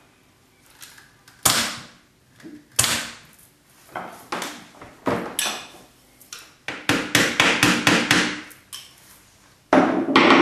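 Corded electric staple gun firing with sharp single clacks, fastening a fiber rush strand to a wooden chair rail, followed by a quicker run of knocks and handling noises on the chair frame.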